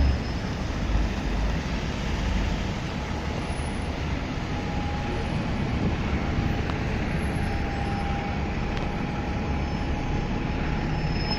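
Stagecoach double-decker bus driving past with its diesel engine running, over steady city-street traffic noise. Low rumble in the first seconds, and a faint steady whine joins about four seconds in.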